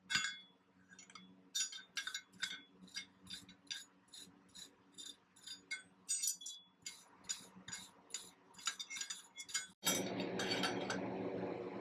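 Blacksmith's hammer striking hot iron on an anvil in a steady run of ringing blows, about three a second. Near the end the hammering stops and a steady rushing noise takes over.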